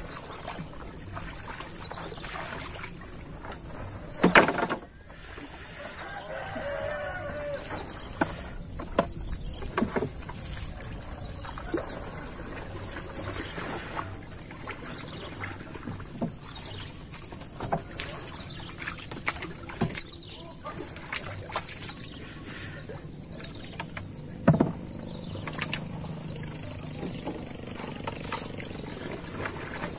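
Wood knocking on a wooden canoe hull, with water splashing as a fishing net is hauled aboard by hand. The two loudest knocks fall about four seconds in and again about two-thirds of the way through.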